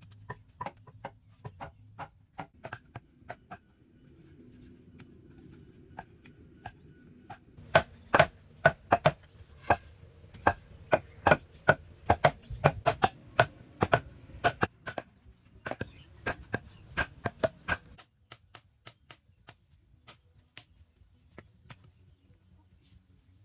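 Repeated sharp strikes of a hand tool, like chopping, about three a second. They are loudest from about eight seconds in, then turn suddenly fainter about eighteen seconds in.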